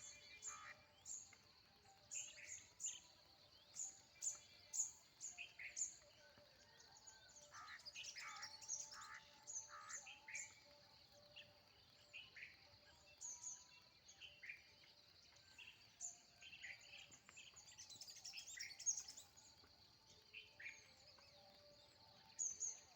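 Birds chirping: many short, high calls following one another throughout, over a steady high-pitched hum.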